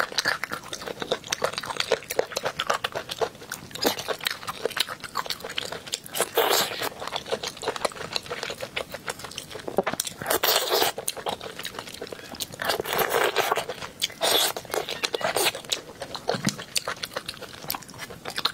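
Close-miked eating sounds: wet chewing, lip smacks and sucking on a braised chicken drumstick in thick sauce, with several louder wet slurps. Near the end, glass noodles are slurped.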